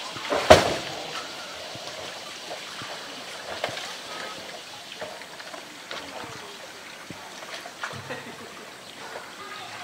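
A blue plastic drum gives one loud, hollow knock about half a second in as a polar bear bites and tugs it on concrete steps, followed by a few lighter knocks and scrapes. Running water trickles steadily behind.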